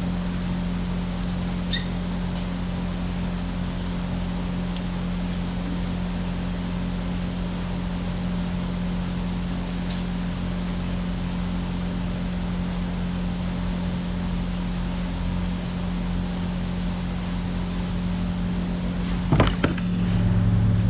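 Steady low machine hum with a regular pulsing beat, broken by a few sharp clicks, one about two seconds in and another near the end.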